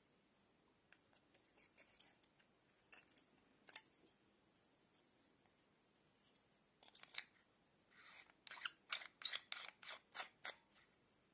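Plastic lamp holder's black threaded cap being handled and screwed on. There are a few light clicks, then in the second half a run of quick scraping clicks, about four a second, as the plastic threads turn.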